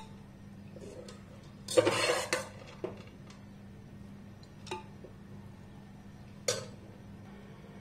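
Metal spoon scraping and knocking against an aluminium pot as parboiled basmati rice is spooned in, layering a biryani: one longer scrape about two seconds in, then three short knocks a couple of seconds apart.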